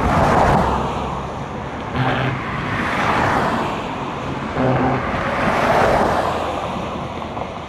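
Road traffic: cars passing one after another, the tyre and engine noise swelling and fading three times.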